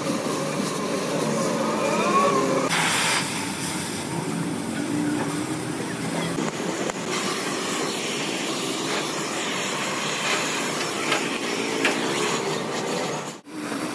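Steady machinery noise with a short burst of hiss about three seconds in.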